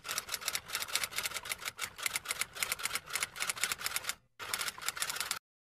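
Typewriter keys clacking in a rapid run, a sound effect for text typing out on screen; it breaks off briefly about four seconds in, then resumes and stops shortly before the end.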